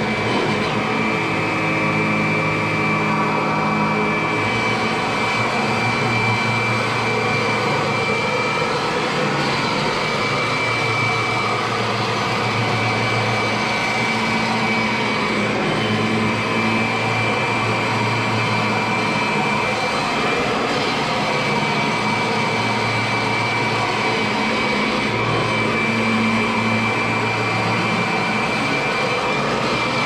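Kirby upright vacuum cleaner running steadily as it is pushed over carpet. It has a steady high-pitched motor whine, and a lower hum that shifts every few seconds.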